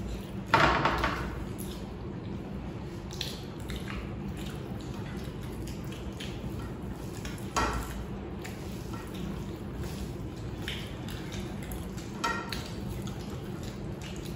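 People eating rice and egg curry with their bare hands: soft wet mouth and squishing sounds of fingers mixing rice and of chewing, with a few short sharp clicks, the loudest about half a second in.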